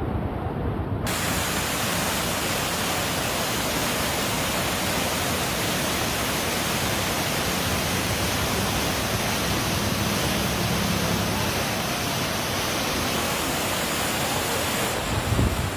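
Loud, steady rushing noise that comes in about a second in and fills the whole range, with a brief low thump near the end.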